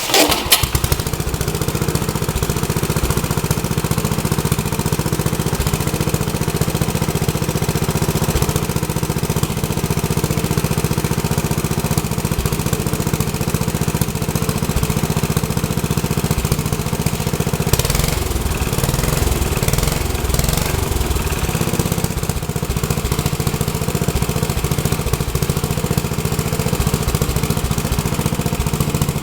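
Freshly rebuilt Troy-Bilt tiller's small single-cylinder engine catching on a cold start and then running steadily.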